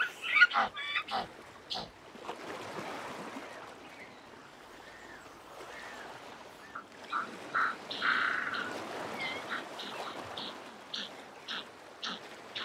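African penguins calling: a few short honking notes at the start, then a louder, longer braying call about eight seconds in, followed by a string of short notes near the end, over a faint steady hiss.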